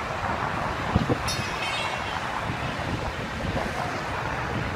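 Steady wind noise on the microphone over outdoor construction-site noise, with a single knock about a second in.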